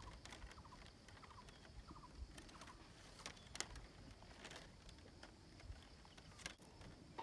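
Faint, scattered ticks and rustling of thin split-bamboo strips as they are threaded by hand through a basket weave.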